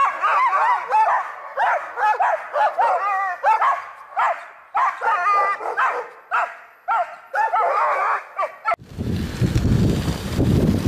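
Harnessed sled dogs, huskies, yipping, whining and barking in a constant excited chorus of short high calls that bend up and down. Near the end it cuts to a steady low rushing noise, wind on the microphone of the moving dog sled.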